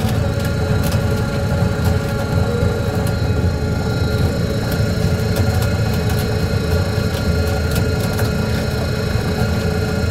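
Trawler's diesel engine running steadily with a low drone, with scattered sharp ticks over it.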